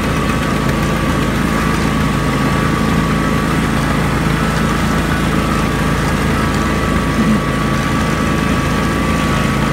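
A John Deere riding lawn tractor's engine running steadily while driving across grass, heard from the seat, with a steady high whine above the engine.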